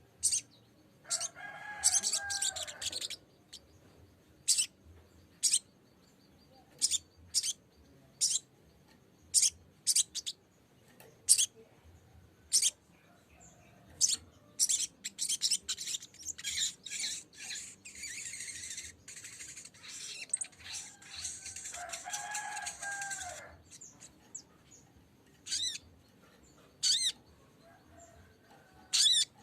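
Sogok ontong (sogon) songbird calling: short, sharp, high chirps at irregular intervals, with a dense run of fast chattering in the middle. Twice, a longer, lower call sounds under the chatter, about two seconds in and again about twenty-two seconds in.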